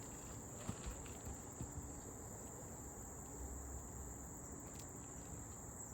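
Steady high-pitched insect chirring, with a few faint taps scattered through it.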